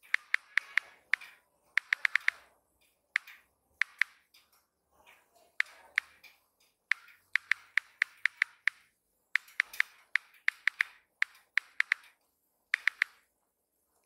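iPhone on-screen keyboard clicks as a text message is typed: quick runs of sharp key clicks in irregular bursts, with short pauses between words.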